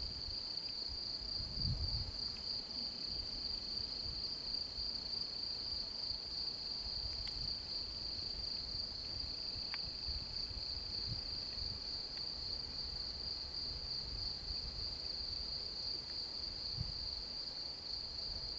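Crickets singing in a steady, high-pitched chorus, with a few low rumbles underneath.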